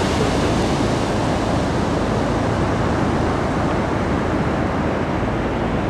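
Waves of the North Sea breaking on a sandy beach: a steady, even rush of surf, with some wind on the microphone.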